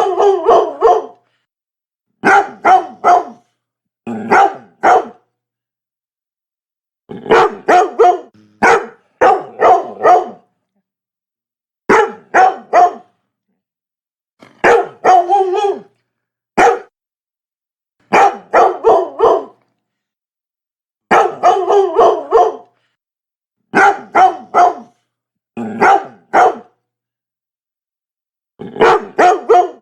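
A Labrador barking in quick runs of two to four barks, each run followed by a pause of a second or two, repeating steadily.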